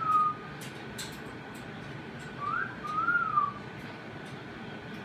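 Short whistled notes: a falling whistle at the start, then a pair of rising-and-falling whistles about two and a half seconds in, with a few faint clicks early on.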